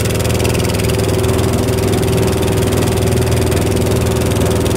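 Engine of a small outrigger boat running steadily under way, a constant drone with an unchanging pitch.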